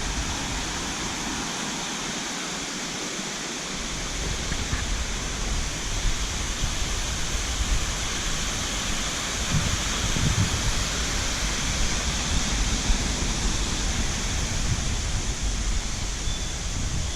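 Mountain stream water rushing steadily, with uneven low wind rumble on the microphone.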